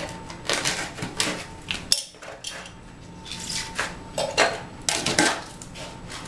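Utility knife cutting and scraping through an edge strip laid on hardened self-leveling underlayment: irregular scraping strokes and light clicks, with a quieter spell about two seconds in.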